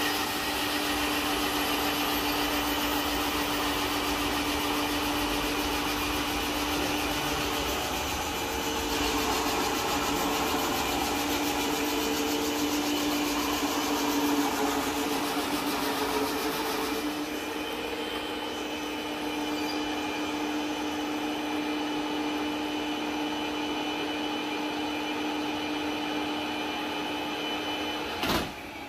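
Log-hollowing woodworking machine running steadily: a constant motor hum under a loud hiss that shifts slightly a couple of times, with one sharp knock just before the end.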